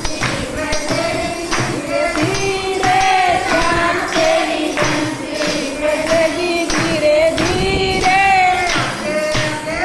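Devotional Hindi bhajan sung in kirtan style, with a steady beat of hand percussion, likely tambourine, under the singing voices.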